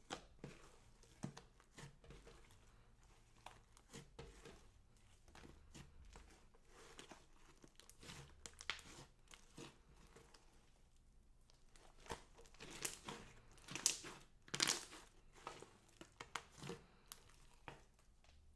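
Slime being squeezed and stretched by hand close to the microphone: irregular sticky crackles, clicks and small pops, with a louder, denser run of them about two-thirds of the way through.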